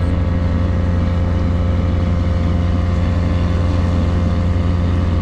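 Fishing boat's engine running steadily: a loud, even low drone with a constant hum, unchanging throughout.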